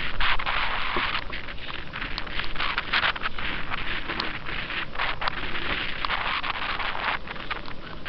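Water rushing and splashing around a small scratch-built electric RC jet sprint boat running through choppy shallows, with gusts of wind buffeting the microphone.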